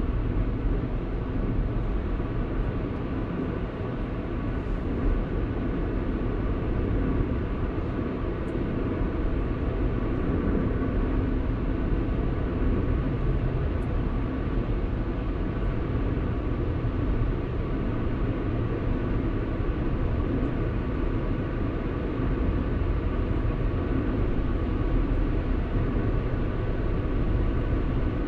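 Car driving along at steady speed: continuous engine and tyre-on-road noise, mostly a low rumble, with no marked change throughout.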